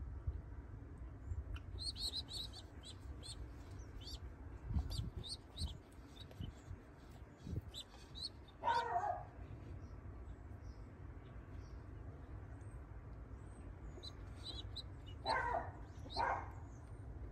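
Short, high-pitched peeps from young pigeon squabs, in a quick run a couple of seconds in, as they are handled in the nest bowl, with a few soft bumps of handling. A few louder, lower, harsher calls come about halfway through and twice near the end.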